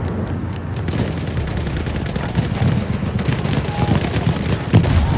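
War sound effect of a First World War battlefield: dense rifle and machine-gun fire, many sharp cracks over a continuous low rumble of artillery, with a heavier boom near the end.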